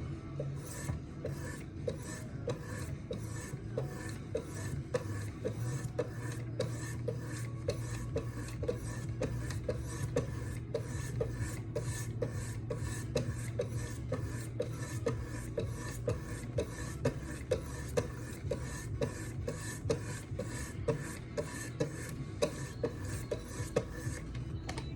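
Oiled high-grit stones of a Wicked Edge guided sharpener scraping along a knife blade in a steady rhythm of about two strokes a second, refining the edge without raising a burr.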